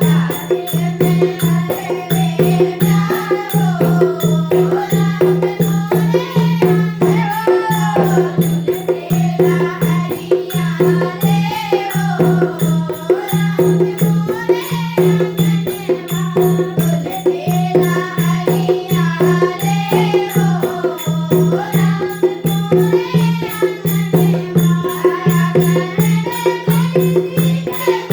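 Hindu devotional bhajan: a voice singing a wavering melody over a steady low drone and a fast, even rattling percussion beat.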